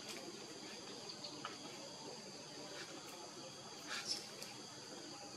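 Steady high-pitched drone of chirping insects in the forest canopy, with a few faint ticks and a brief sharp click about four seconds in.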